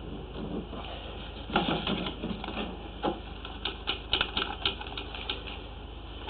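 Drain-clearing gear, a jetter hose with a root-cutter nozzle, clicking and rattling as it is worked in a root-choked sewer pipe. The clicks come irregularly at first and run into a quick series of ticks around the middle, over a low steady hum.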